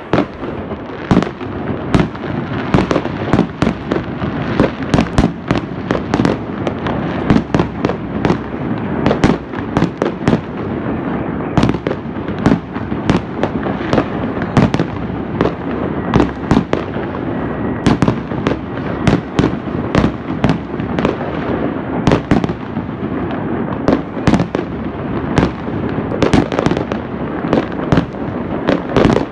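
Many fireworks going off at once: a constant din of bursting aerial shells and firecrackers, with sharp loud bangs several times a second over continuous crackling.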